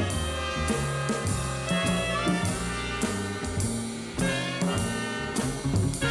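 Jazz big band playing: trumpets, trombone and saxophones sound held chords that change every second or so, over bass and drum kit with frequent cymbal strokes.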